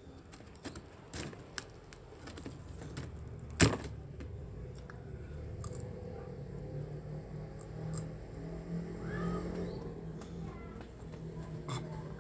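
Eating sounds of crisp krupuk crackers: a run of sharp crunches and mouth clicks, the loudest about three and a half seconds in. A low steady hum runs underneath in the second half.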